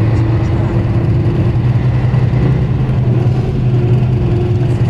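Tour coach running on the road, heard from inside the cabin: a steady low engine drone with road noise, the engine note climbing slightly in the first second or so.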